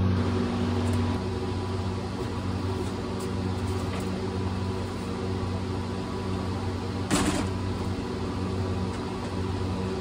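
Steady low hum of running machinery, with one short knock about seven seconds in.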